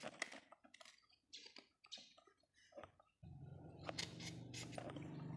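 Faint clicks and light scrapes of small parts being handled: an electric fan motor's rotor and steel shaft being worked out of its plastic bearing bracket. About three seconds in, a low steady hum starts underneath.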